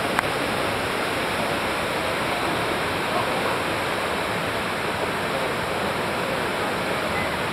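Steady rush of a river waterfall pouring into churning whitewater.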